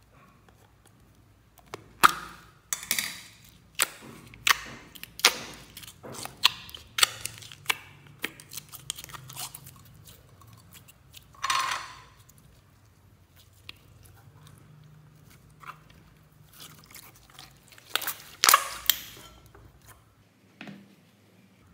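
Thick glossy slime squeezed and kneaded by hand, giving a run of sharp wet clicks and pops, about one or two a second. A few longer squelches come near the middle and again near the end.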